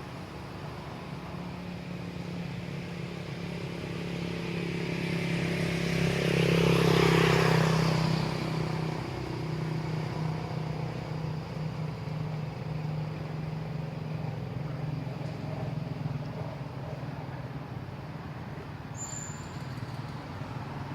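Steady low motor hum that grows louder and then fades again about six to eight seconds in.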